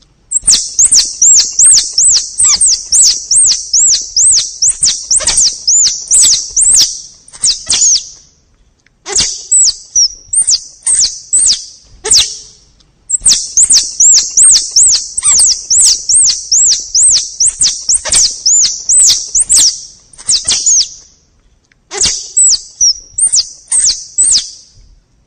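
Squirrel lure call: a forest squirrel's (tupai) chirping, played as a hunting lure. It comes as long rapid runs of high-pitched, rising-and-falling chirps with sharp clicks among them, about three chirps a second, broken by short pauses.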